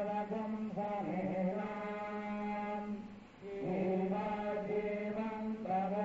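Devotional chanting sung in long held notes over a steady low tone, with a short break about three seconds in.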